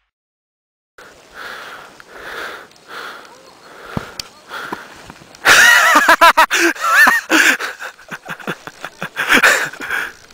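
A person's voice: short breathy vocal sounds at about two a second, then a loud, wavering vocal outburst around the middle, and a few more breathy bursts near the end.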